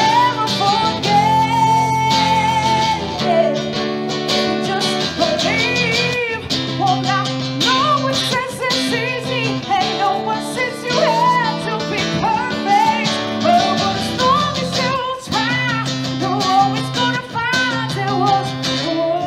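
A woman singing a song live, accompanied by acoustic guitars.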